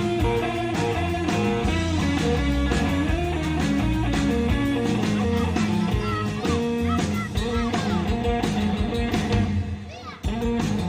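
Live rock band playing a surf-style instrumental: twangy electric guitar over bass and a steady drum beat, with bent and sliding guitar notes partway through. The band drops out briefly near the end, then comes back in.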